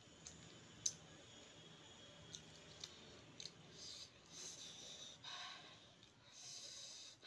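Faint eating sounds from a person chewing golgappa with green chilli: a few soft mouth clicks, the sharpest about a second in, then stretches of breathy hissing in the second half.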